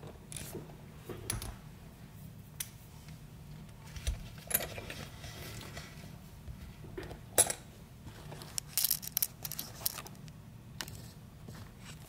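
Steel W-Lok Ovallok padlock being set into a small bench vise and clamped: scattered metal clicks and knocks, with a dull thump about four seconds in, one sharp click about seven seconds in, and a quick run of clicks just after.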